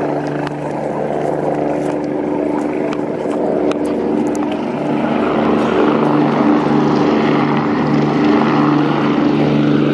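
Aircraft engine running steadily with a droning hum and broad rushing noise that grows louder about halfway through.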